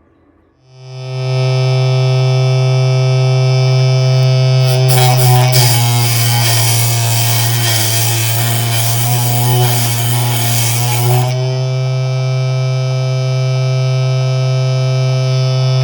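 Homemade table saw driven by a 775 DC motor switched on, spinning up within about a second to a loud steady whine. From about five seconds in, the blade cuts through a workpiece for roughly six seconds with a harsh, noisy grinding over the whine. It then runs free again.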